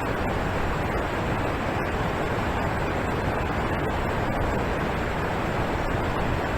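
Alpine waterfall pouring and splashing in a steady, unbroken rush of water.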